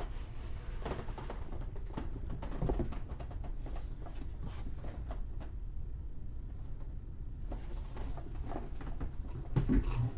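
Handling noises from unpacking a toy: scattered light clicks, taps and rustles of packaging, with a louder clatter near the end, over a steady low background hum.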